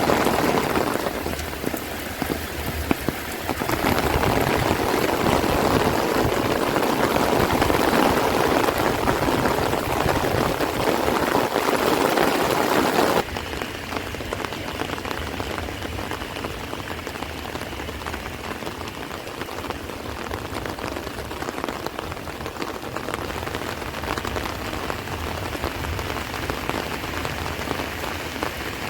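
Heavy rain falling steadily, a dense even hiss. About thirteen seconds in it drops suddenly to a quieter, duller rain that carries on steadily.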